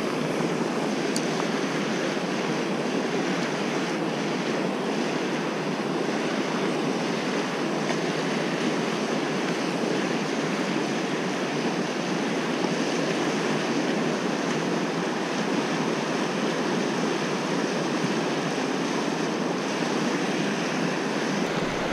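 Fast river water rushing steadily over shallow riffles and rapids, heard close to the surface.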